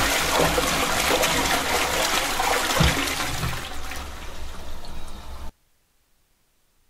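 Rushing water, fading from about four seconds in and cut off abruptly about a second and a half later, leaving dead silence.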